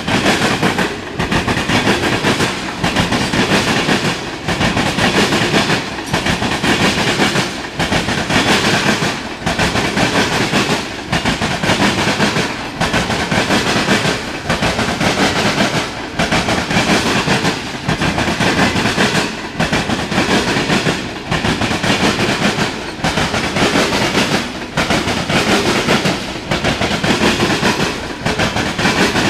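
Freight train of ethanol tank cars rolling past, wheels clacking over the rail joints. The loud, steady rumble swells and dips regularly about every second and a half to two seconds.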